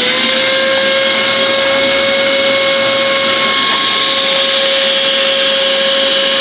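Electric chop saw motor running at full speed: a loud, steady whine with no change in pitch.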